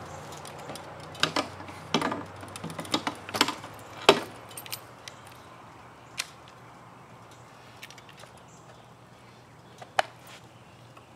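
Metal clicks and rattles of handling: keys on a belt chain jangling as a pressure washer's spray wand is moved about, in a cluster over the first few seconds, then a single click about ten seconds in.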